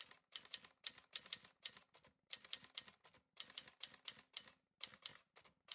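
Typing sound effect: soft, quick key clicks in short irregular runs with brief pauses between them, matching text being typed onto the screen.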